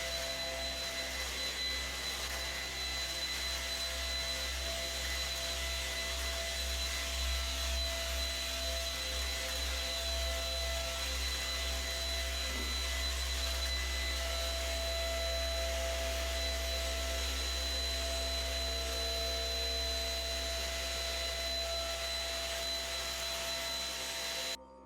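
Shark vacuum cleaner running steadily with a high whine over its motor and airflow noise. It cuts off abruptly near the end.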